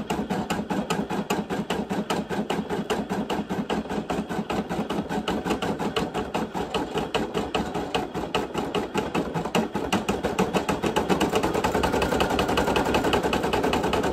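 Brother PE800 embroidery machine stitching a design, its needle going in a steady rapid clatter of about ten stitches a second, a little louder in the last few seconds.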